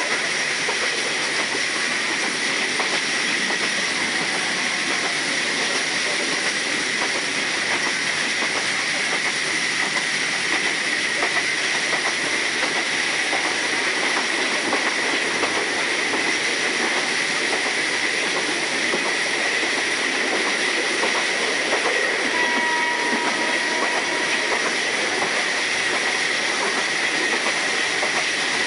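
Train running along the rails: a steady, even rush and rumble of wheels and carriages with a constant high whine.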